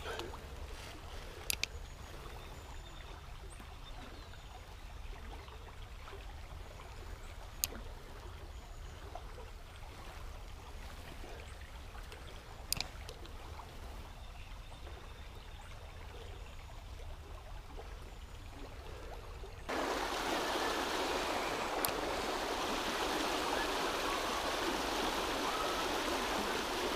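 Mountain river rushing steadily, with a low rumble underneath and a few isolated sharp clicks. About two-thirds of the way through, the water sound jumps suddenly louder and brighter and stays so.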